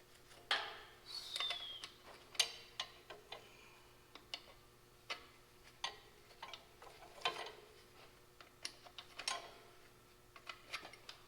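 Hand tools working on old tractor parts: scattered light metallic clicks and short scrapes at an uneven pace, with a brief squeak that falls in pitch a little over a second in.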